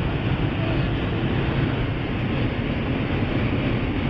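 Inside the cabin of a VW Golf 3 Variant diesel cruising on the motorway: a steady drone of engine, wind and tyre noise.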